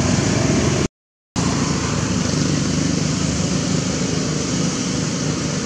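Steady roadside traffic noise, an even rumbling hiss, broken by a sudden dead-silent gap of under half a second about a second in.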